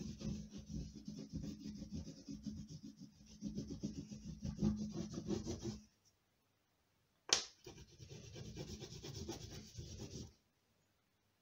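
Oil pastel stick rubbed hard over paper in quick short strokes as the background colour is laid down. The rubbing cuts off abruptly twice, and there is one sharp click a little after seven seconds.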